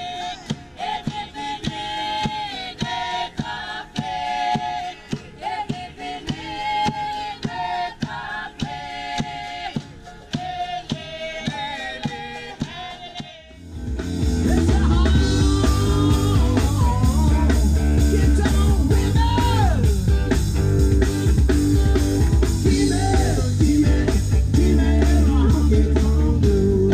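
Music with singing: a sung melody over a light beat, then about halfway through a sudden change to a much louder rock band with drum kit, bass, electric guitar and vocals.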